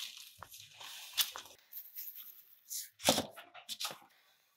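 Hands kneading sticky marshmallow slime on parchment paper: irregular rustling and crinkling of the paper with soft slaps, loudest about three seconds in.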